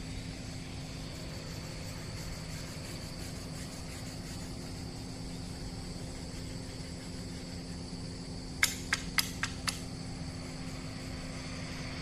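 Steady low mechanical hum with a constant tone and a faint, steady high drone above it. About nine seconds in, a quick run of five sharp chirps or clicks.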